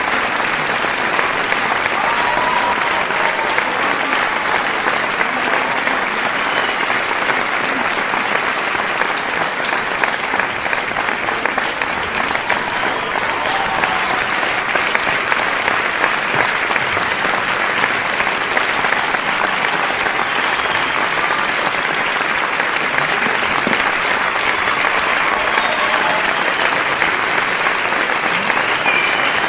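A large crowd applauding: dense, steady clapping from many hands, with faint calls rising through it now and then.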